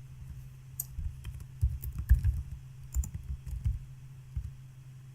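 Typing on a computer keyboard: irregular key clicks and thumps, with a steady low hum underneath.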